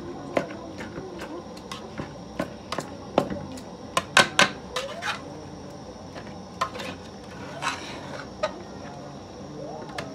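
Metal slotted spoon knocking and scraping against a metal cooking pot as greens are stirred: irregular clinks, with a quick run of the loudest ones about four seconds in.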